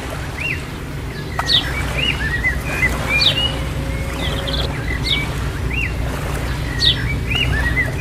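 Bird chirps and short whistled calls, a falling whistle followed by a cluster of arched chirps, repeating in a regular pattern about every two seconds over a low steady rumble.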